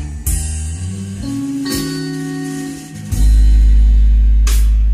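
Guitar music played back through a pair of Celestion Ditton 44 three-way loudspeakers driven by a four-EL34 valve amplifier. A deep, loud bass note comes in about three seconds in.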